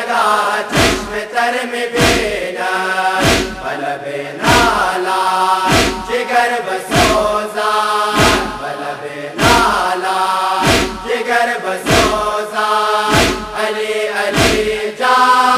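Male chorus chanting a Shia lament (noha) in unison, over a steady beat of chest-beating thuds about once a second.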